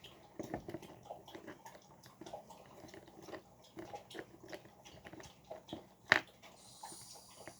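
Small kit screwdriver driving a screw into a plastic toy airplane part: faint, irregular creaks and clicks of plastic, with one sharper click about six seconds in.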